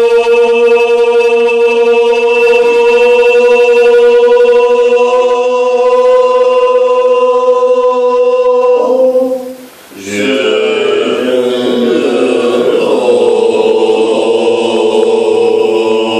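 Tibetan Buddhist monks chanting: a long, steady held note that breaks off about nine seconds in, then the chant resumes a second later with a fuller, lower sound.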